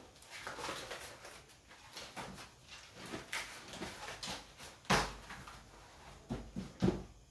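Sheets of paper rustling and being shuffled by hand, with a sharp knock about five seconds in and two lighter thumps near the end.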